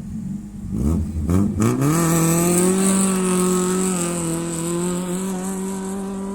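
Off-road rally car engine accelerating hard: the pitch climbs over about a second, then holds at high revs, easing slightly in loudness toward the end.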